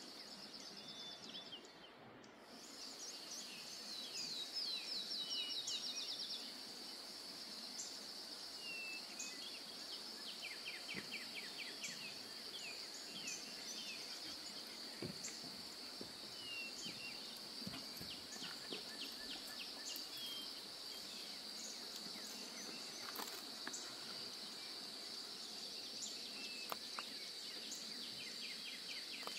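Outdoor nature ambience: a steady high-pitched insect drone, broken briefly about two seconds in, with bird trills and short chirps scattered over it.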